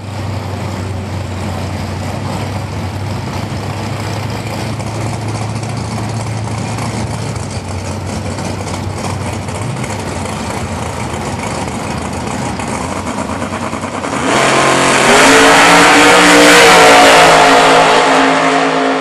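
First-generation Camaro SS drag car's V8 running steadily at the starting line, then launching at full throttle about 14 seconds in. The engine note rises sharply and stays very loud as the car pulls away down the strip, fading slightly near the end.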